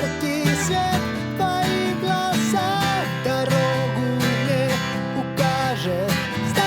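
Pop-rock song in an instrumental passage: a melody that bends and wavers in pitch over strummed acoustic guitar and a band backing.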